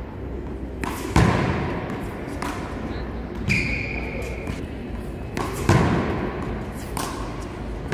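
Sharp slaps and thuds of a rubber wallball being struck by hand, hitting the front wall and bouncing on the hard court, several times a second or two apart during a rally. A brief high squeak, like a court shoe skidding, comes about halfway through.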